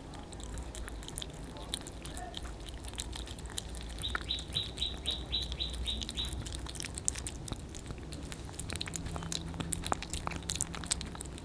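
Two kittens chewing and licking wet cat food from a plate: a steady run of small wet clicks. About four seconds in, a quick run of high chirps, about five a second, goes on for around two seconds.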